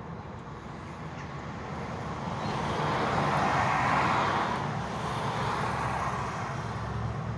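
A car driving past: road noise that rises to its loudest about halfway through and then falls away.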